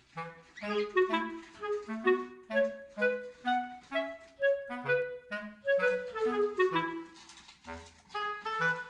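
Background music: a light tune of short, quick notes in a reedy woodwind voice over a bouncing bass line.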